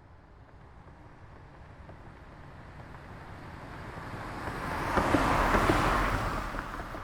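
A car passing by: road and tyre noise builds steadily as it approaches, is loudest about five to six seconds in, then falls away as it moves off.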